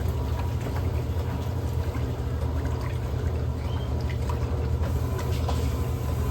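Electrolux LM08A top-load washing machine with a dual-action agitator working a load of towels: a steady low motor hum with water sloshing and small clicks.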